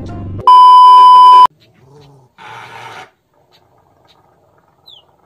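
A loud, steady, high-pitched censor-style beep tone lasting about a second, starting about half a second in. Just before it, a low growl from a small dog baring its teeth.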